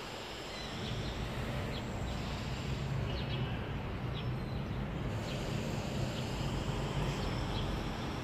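Ambient background noise: a steady low rumble that grows a little louder just under a second in, with a few short, high bird chirps here and there.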